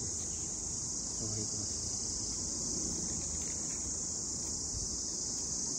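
Steady, high-pitched insect chorus, unbroken throughout, over a low rumbling background.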